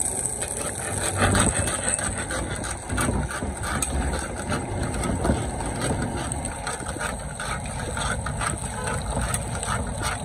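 Large karahi woks of meat and tomatoes sizzling and steaming over gas burners: a steady low rumble from the burners with a constant crackle of frying.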